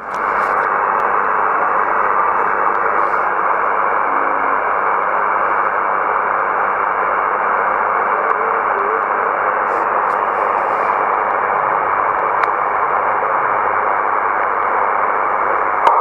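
Steady hiss of band noise from a Yaesu transceiver's receiver on 27.225 MHz lower sideband, with no station transmitting. The static is thin and narrow-toned, as heard through a sideband filter.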